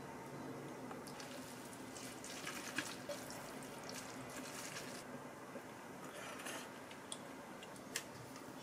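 Wooden chopsticks tossing sauce-coated noodles in a ceramic bowl: soft wet squishing with light clicks, busiest in the first half. Near the end comes a single sharp tap as an egg is cracked.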